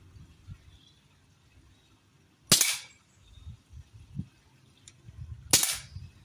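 Two shots from a Huntsman FAL CO2 air rifle, about three seconds apart, each a single sharp crack with a brief tail.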